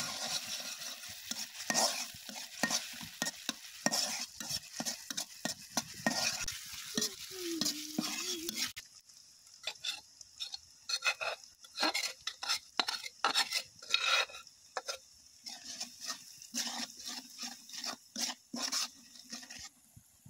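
Metal spatula stirring and scraping in a steel wok, with many quick strokes, while food sizzles in hot oil. About nine seconds in, the sizzle drops away abruptly while the stirring strokes go on.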